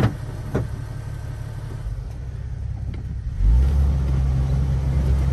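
Off-road tour Jeep's engine running on a rocky dirt trail, with a couple of sharp knocks near the start. About three and a half seconds in the engine note grows louder and deeper and stays there as it pulls harder.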